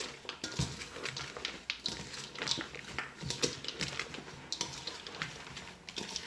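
Wooden spoon stirring crushed-saltine stuffing mix in a stainless steel mixing bowl: irregular scrapes and light clicks of the spoon and cracker pieces against the metal.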